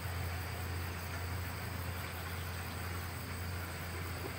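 Distant diesel locomotive approaching slowly: a steady low engine hum under an even hiss.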